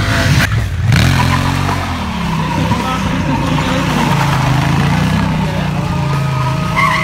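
Honda Africa Twin CRF1000L parallel-twin engine revving up and down under a wheelie, then running at steadier revs as the bike is ridden in tight circles. A tyre squeal starts near the end.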